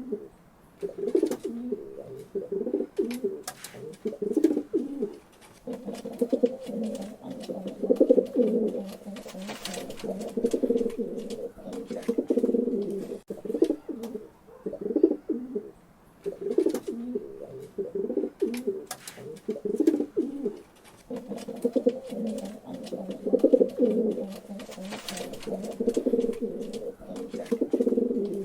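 Pigeons cooing in repeated low, throaty warbling phrases, nearly continuous with short breaks, with scattered sharp clicks.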